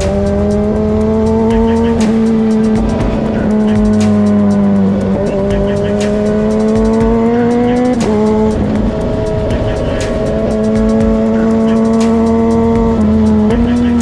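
Sport motorcycle engine running at steady high revs under way. Its pitch climbs slowly, then drops back three or four times as the rider changes gear or rolls the throttle. Background music with a regular beat plays along.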